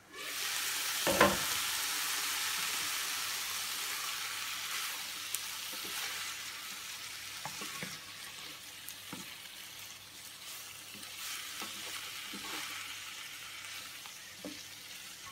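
Chicken breast and vegetables sizzling in a frying pan, loud at first and slowly fading, while a wooden spatula stirs them, knocking and scraping against the pan now and then. A sharp knock about a second in is the loudest sound.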